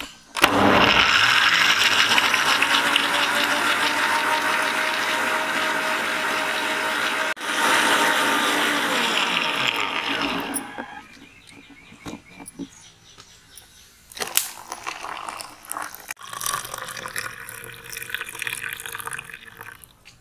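Electric mixer-grinder blending pomegranate seeds with sugar and water: it starts suddenly, runs steadily for about ten seconds with one brief stop partway, then stops. Near the end the juice is poured from the jar into plastic cups, splashing.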